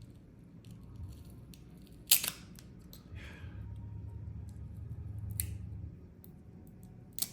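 Small sharp clicks and snaps of a tracker's plastic housing and battery being handled and pried loose, the loudest click about two seconds in, with light scraping between.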